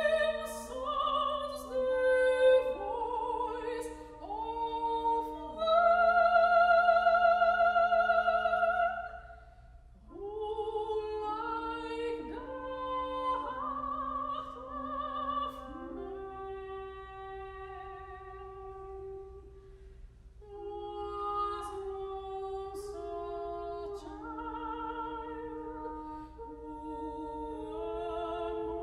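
Soprano singing with vibrato, accompanied by French horn and piano. A loud, long held high note comes about six seconds in.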